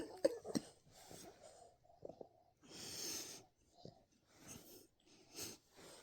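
English bulldog snoring softly in its sleep: a series of wheezy, breathy snores about every second or two, the loudest about three seconds in.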